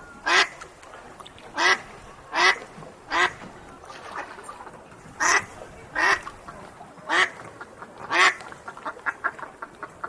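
A duck quacking: about eight loud single quacks at uneven intervals of roughly a second, then a quick run of softer, shorter quacks near the end.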